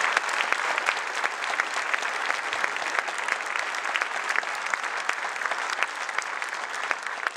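Audience applauding: dense, steady clapping from a large hall crowd, easing slightly near the end.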